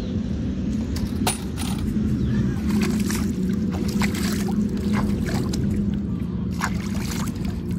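Hands splashing and rinsing in lake water at the bank, a series of short splashes and drips. A steady low mechanical hum runs underneath.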